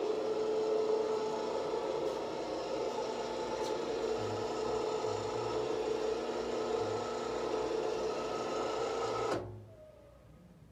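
Motor of a motorized retractable patio screen running with a steady hum as it lowers the screen, then stopping abruptly about nine seconds in as the screen reaches the floor at the end of its travel.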